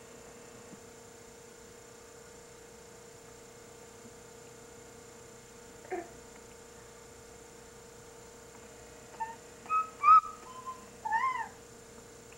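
A seven-month-old baby's high-pitched squeals: one short one about six seconds in, then a quick run of loud rising-and-falling squeals near the end. A steady electrical hum sits underneath.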